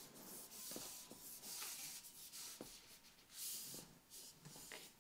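Faint rubbing and scraping in several short strokes: the sections of a telescopic Tenkara rod sliding against each other as the rod is pulled out.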